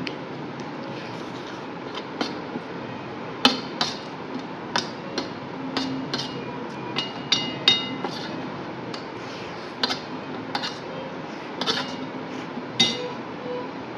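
Eating utensils clinking and scraping against a dish as the last of the noodles are scooped up: irregular sharp clicks, a few of them ringing briefly around the middle.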